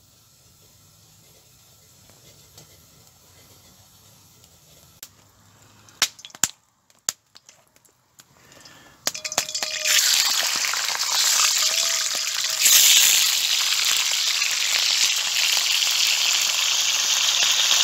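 A few sharp clinks and knocks, then from about nine seconds in, food sizzling loudly in a hot frying pan.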